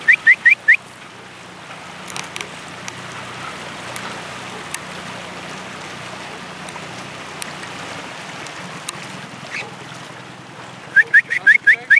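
A dog yelping in quick runs of short, high, rising squeals: about five at the start and about seven near the end. Between the runs there is the steady hum of a boat's motor with water noise.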